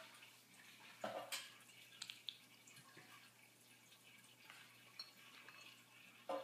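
Near silence with a few faint, brief clicks and taps from handling food and utensils during sushi prep, the clearest about a second in.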